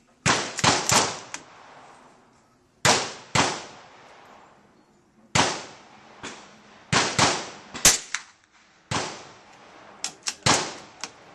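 Gunshots on a firing line: about twenty sharp reports in uneven clusters, too close together for one bolt-action rifle, so more than one gun is firing.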